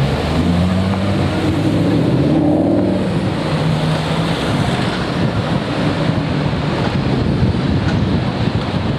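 Ferrari F12berlinetta's V12 engine accelerating away, a stacked engine note that lasts about four seconds before fading into city traffic noise and wind on the microphone.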